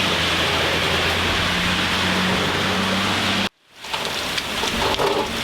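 Heavy hurricane rain and wind, a dense steady hiss with a low hum underneath. It cuts out abruptly about three and a half seconds in and comes back as a slightly different patch of rain and wind.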